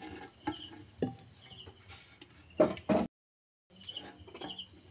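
Insects chirring in a steady high trill, with a few short knocks scattered through it, the loudest two close together about three seconds in. The sound cuts out for about half a second just after that, then the chirring resumes.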